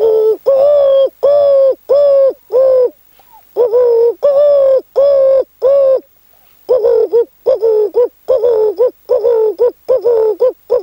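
A man imitating a dove's cooing by mouth: short, even, hooting coo notes in three runs with brief pauses between them, about five, then four, then a quicker run of nine or so.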